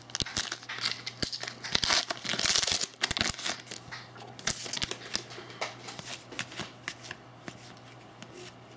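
Hockey card packs being handled: foil wrapper crinkling and cards rustling and clicking as they are shuffled. The handling is busy for the first three seconds or so, then thins to scattered faint clicks, over a faint low hum.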